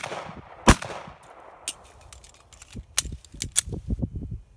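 Semi-automatic pistol fired at an outdoor range: one loud shot under a second in, closing the first pair of a two-shot, reload, two-shot drill. Then come the softer clicks and clacks of the magazine change, a few sharp ones about three seconds in, as the shooter reloads for the second pair.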